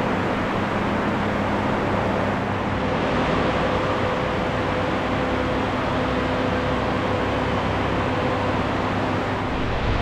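Steady rushing air noise with a faint, even hum underneath, unchanging throughout.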